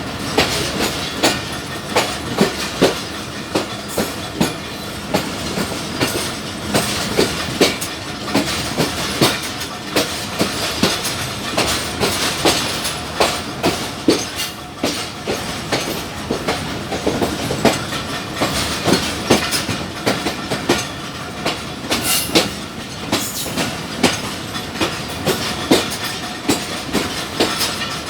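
Passenger train's wheels clattering over the rail joints, with a steady rumble under a long run of sharp clicks and rattles.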